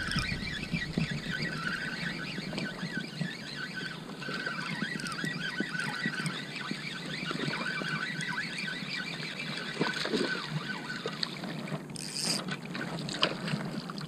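Wind on the microphone and small waves lapping while a spinning reel is cranked to bring in a hooked speckled trout. The fish splashes at the surface near the end.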